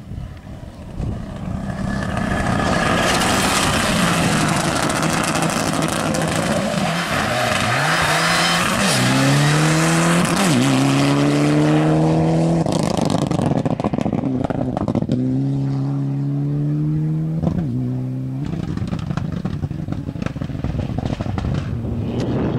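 A rally car being driven hard past at speed, with a loud rush of tyre and road noise as it comes close. The engine note climbs in pitch and drops back sharply several times as the driver changes gear, then fades away.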